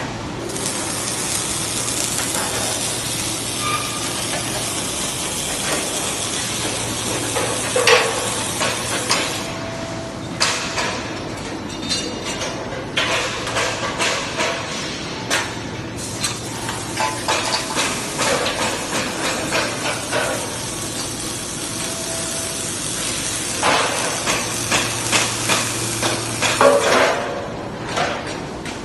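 Beam welding machine's arc sizzling and crackling steadily over a low electrical hum. The arc thins out briefly a few times, and clicks and knocks come in through the second half.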